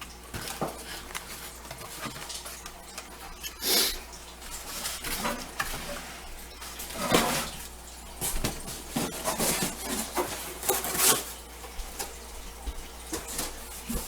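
Packaging and parts being handled while a garage door opener's motor unit is unpacked from its box: rustling with scattered light knocks and clatters, a few louder ones about 4, 7 and 11 seconds in.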